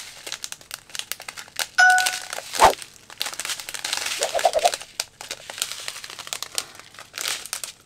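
Plastic zip-lock bags of diamond painting drills crinkling and rustling as they are handled. A brief ding sounds about two seconds in, and a sharp knock follows just after.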